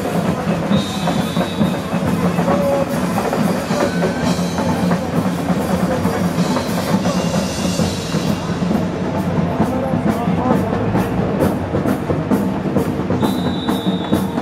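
Music with drumming, with a regular run of beats in the second half.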